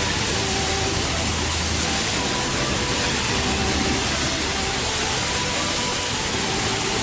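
Steady hiss of a high-pressure car-wash spray wand spraying water onto a truck.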